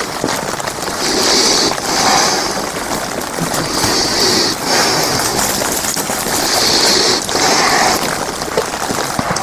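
Wet snow and rain pattering on an umbrella held just over the microphone, a dense crackly hiss, with a higher rushing hiss that swells and fades about every two and a half seconds.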